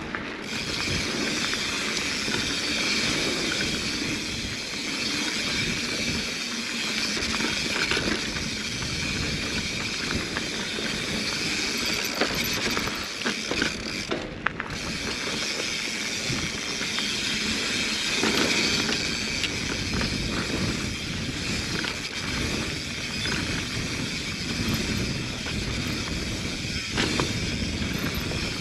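Mountain bike riding fast down a dirt singletrack: a steady rush of tyre noise and wind on the GoPro's microphone, with scattered clicks and rattles from the bike over bumps.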